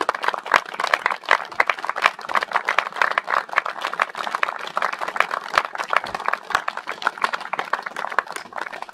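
Audience clapping: a dense, steady patter of many hands, fading away near the end.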